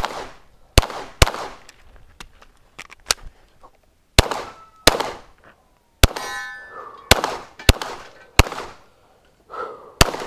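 Rapid pistol shots from a Glock on an IPSC stage, about ten in all, in quick pairs and singles with short pauses between. About six seconds in, one shot is followed by the metallic ring of a struck steel target.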